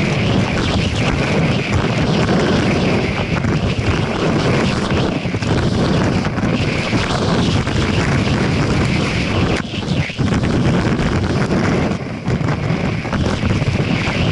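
Wind rushing over an action camera's microphone as a skier runs fast downhill, mixed with skis hissing and scraping on packed snow. The steady roar eases briefly twice, about ten and twelve seconds in.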